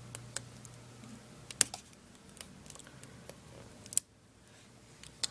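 Scattered small plastic clicks and taps from hands working the laptop's screen assembly apart, a few of them sharp.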